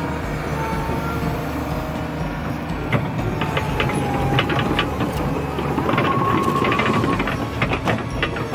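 Komatsu PC200LC-6 excavator's Cummins diesel engine running steadily under hydraulic load, with a faint hydraulic whine as the arm and bucket move. From about three seconds in, the bucket linkage and pins give off a run of sharp clicks and clanks. The whine and the engine grow louder for a couple of seconds near the end.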